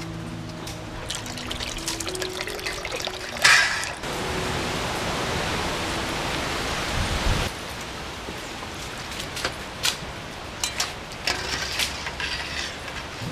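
Water sloshing and dripping as boiled noodles are lifted out of a stainless steel bowl of water with a ladle and tongs. There is a loud splash about three and a half seconds in, then a steady rush of running water for a few seconds, then scattered metal clinks and drips.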